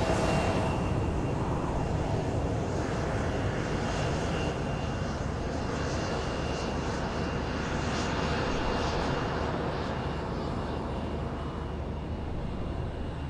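Airliner engines running, a steady rush with a thin high whine that slowly fades.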